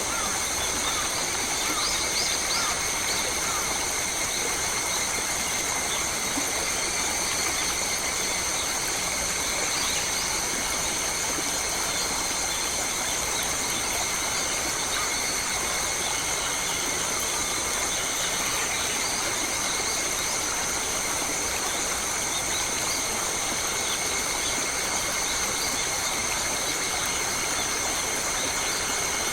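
Bush ambience: a steady, high-pitched drone of insects held at several pitches at once, over an even wash of flowing water, with a few faint bird chirps in the first few seconds.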